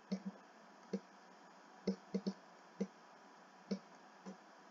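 A stylus tapping and clicking against a writing screen as digits and a dot are handwritten: about nine short, light clicks at irregular intervals over faint background hiss.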